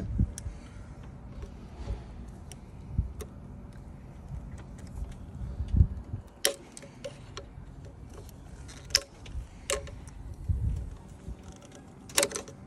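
Hands and small tools working on the fuel injector pipes, connectors and return-hose clips of a VW 1.6 TDI diesel engine that is switched off: scattered sharp clicks of plastic and metal parts and a few dull knocks.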